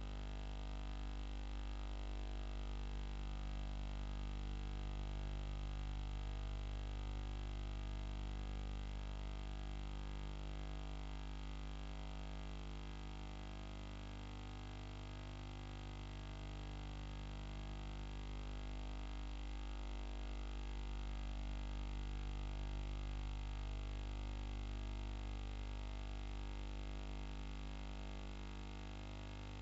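Steady buzzing drone with many overtones, slowly swelling and fading.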